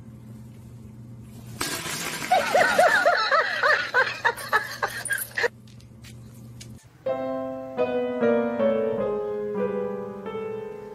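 A sudden loud, harsh crash-like noise lasting about four seconds, with a person laughing over it; then, about seven seconds in, a piano-like tune of stepping notes starts.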